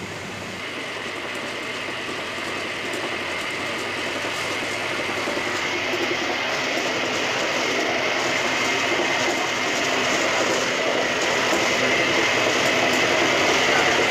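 Electric motor-driven wet grinder for idli and dosa batter, belt-driven, running as it grinds soaked rice fed into its steel hopper. A steady mechanical grinding noise that grows gradually louder.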